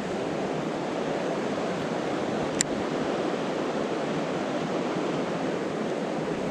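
Steady rush of a fast, clear mountain river flowing over a stony bed, with a single sharp click about two and a half seconds in.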